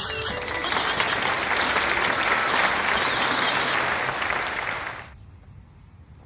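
Applause from many hands, a dense steady clapping that cuts off abruptly about five seconds in.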